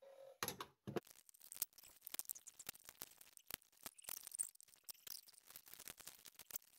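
Handling noise: a dense, irregular run of small clicks, taps and rustles as wires, test leads and circuit boards are moved about and connected on a wooden table.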